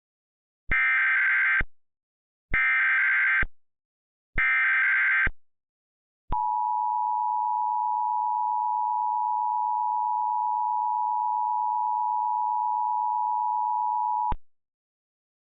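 Emergency Alert System tones for a required weekly test: three bursts of SAME digital header data, about a second each, followed by the two-tone attention signal (853 and 960 Hz sounding together), held steady for about eight seconds before cutting off.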